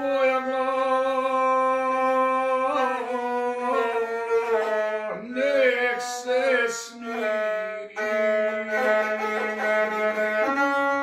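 Gusle, the single-string bowed folk fiddle, played under a man's singing voice in long held notes that now and then waver and bend in pitch, in the style of Montenegrin epic song.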